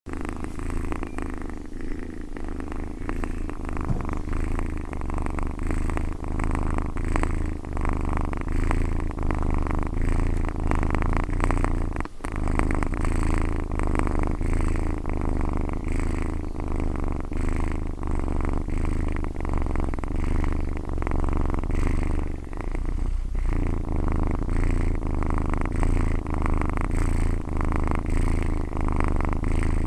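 Domestic cat purring steadily and continuously, a low rumbling purr that falters briefly twice, at about 12 and 23 seconds in.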